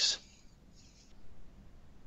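The tail of a man's spoken word, ending in a hiss, then a pause with faint room tone through the webinar audio and a soft brief hiss about a second in.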